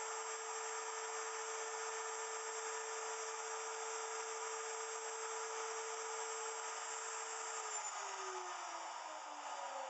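Wood router motor running at full speed with a steady high whine, then switched off near the end, its whine falling as the motor spins down.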